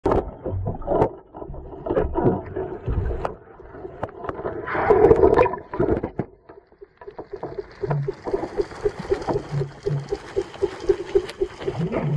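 Underwater noise picked up through a camera housing: irregular knocks and handling clicks, a louder rushing burst about five seconds in, then a quick, regular pulsing of about three or four beats a second.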